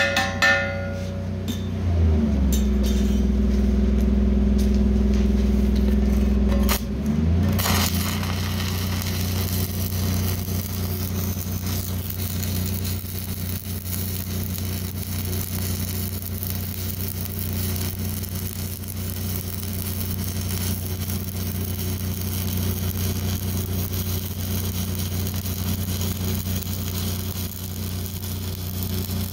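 Stick (shielded metal arc) welding on steel plate: a steady crackling arc from about eight seconds in, over a constant low machine hum. Before the arc, a louder low hum runs for about five seconds.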